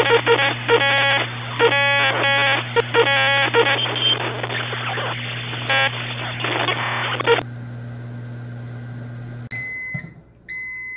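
Whirlpool over-the-range microwave running with a foil-wrapped steel tool inside: a steady hum under loud crackling and short buzzing bursts of arcing from the aluminium foil, the crackling stopping about two-thirds of the way through. Near the end the hum cuts off and the microwave beeps its end-of-cycle signal a few times.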